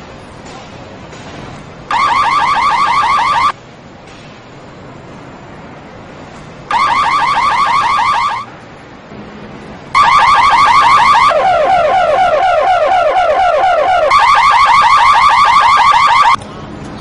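Electronic car alarm siren going off in bursts of a fast, high warble: a short blast about two seconds in, another near the middle, then a longer run of about six seconds that switches to a lower-pitched warble for a while before going back to the high one.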